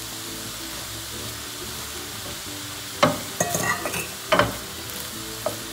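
Vegetables and soya chunks sizzling steadily in a stainless steel frying pan. A wooden spatula stirs through them, with a few sharp scrapes and knocks against the pan about three and four and a half seconds in.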